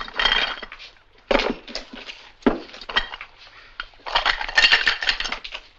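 Oysters in their shells being stuffed into a raw turkey, in four bursts of clicking and clatter.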